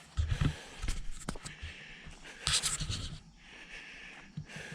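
Footsteps and rustling from someone walking outdoors: a few irregular dull thumps, with a cluster in the first half-second and another about two and a half seconds in, plus light clicks and hiss.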